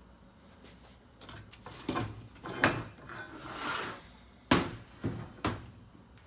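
A series of sharp metal knocks and clinks from welding parts and tools being handled, about six in all, with a short hiss a little past the middle.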